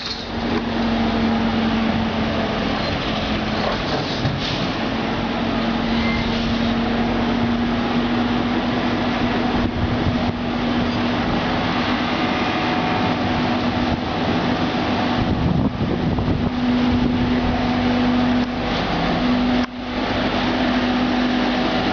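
Trolleybus on the move: a steady electric hum over continuous road and running noise, which dips briefly about two seconds before the end.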